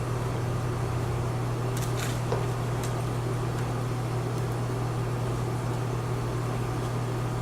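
Steady low hum, with a few faint clicks about two seconds in.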